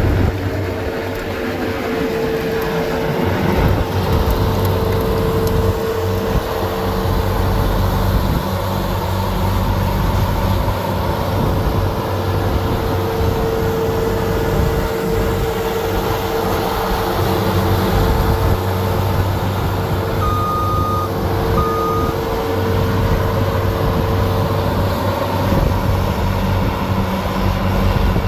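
Bobcat S185 skid steer's diesel engine running steadily under load while its snowblower attachment spins and throws snow, with a steady whine over the engine drone. Two short beeps about twenty seconds in.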